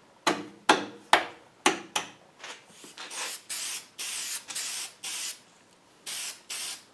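Aerosol spray paint can spraying in a string of short hissing bursts, the later ones held about half a second each.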